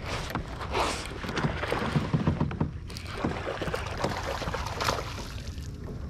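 Kayak on the water: irregular splashing, rustling and knocks from movement and handling in the boat.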